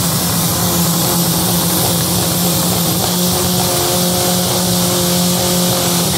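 Drag-racing car engines held at steady high revs on the start line, loud and unbroken. A second, higher steady engine tone joins about three seconds in.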